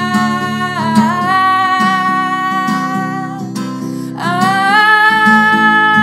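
Woman singing long held notes over a strummed acoustic guitar. After a short break her voice slides up into a louder sustained note about four seconds in.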